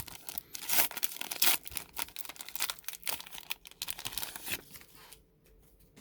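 Crinkly wrapper of a baseball card pack being handled and torn open: a dense run of short crackles and rips that dies down to light handling about four and a half seconds in.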